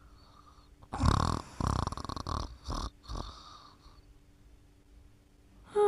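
Snoring: a rough, rattling snore in several breaths, starting about a second in and lasting about two seconds.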